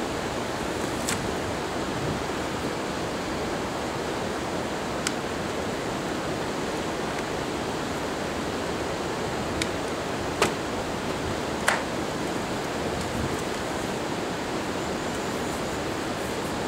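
Steady rushing background noise, with a handful of short sharp clicks and knocks, the loudest two near the last third, as a BMW touring motorcycle's hard plastic top case and pannier are handled and latched.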